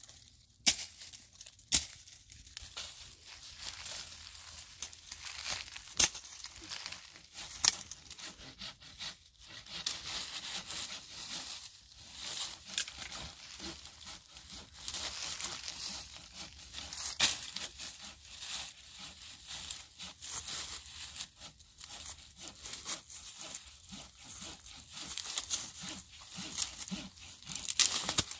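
Dry leaves rustling and crackling as leafy branches are handled and pulled through a carpet of dry fallen leaves, with sharp twig snaps now and then.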